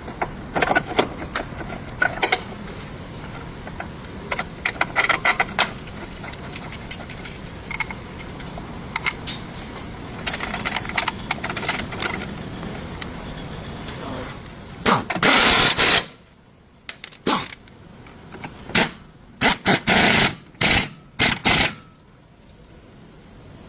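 Hand-tool work on a car: scattered metal clicks and knocks over a steady background noise, then a loud noisy burst lasting about a second past the middle, followed by several shorter bursts.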